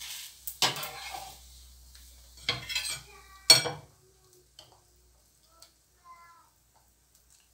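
Slotted metal spatula scraping a dosa off a flat griddle pan and clattering down onto a ceramic plate, the loudest clank about three and a half seconds in, over a light sizzle. After that it goes quiet but for a few faint scrapes of a metal ladle stirring batter in a glass bowl.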